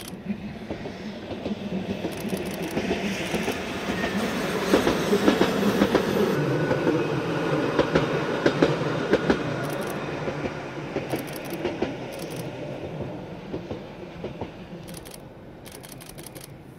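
Fukui Railway single-car electric train passing on single track, its wheels clicking over the rail joints. It grows louder to a peak about five to nine seconds in, then fades away.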